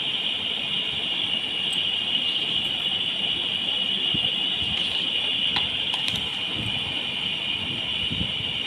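A steady high-pitched whine, with soft bumps and a few faint clicks around the middle as handwritten notebook pages are turned.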